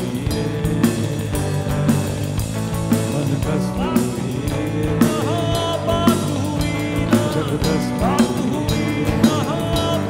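Indian fusion-rock band playing live, with drum kit, electric guitar, hand percussion and male singing. A drum hit lands about once a second, and sung lines come through the middle.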